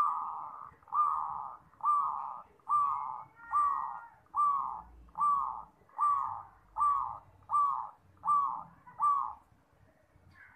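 Zebra dove (perkutut) cooing: a run of about twelve short, even notes a little under a second apart, each starting with a falling slur, stopping about nine seconds in.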